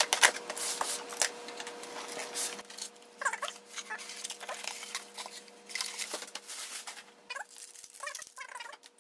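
Printer packaging being handled: cardboard and plastic wrap rustling and tapping, with short squeaks of the foam packing rubbing, a few around the middle and more near the end.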